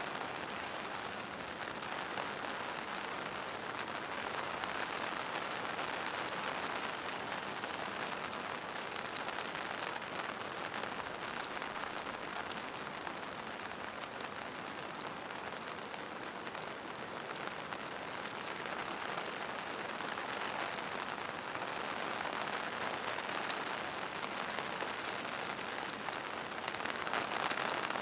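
Steady rain falling on forest leaves and moss-covered rocks, a dense even patter of drops.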